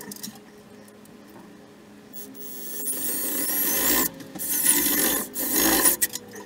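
Cordless drill running its attachment against metal fittings on top of a water heater, a harsh scraping, rasping sound with thin high squeals. It comes in three spells, starting about two seconds in, with short breaks between.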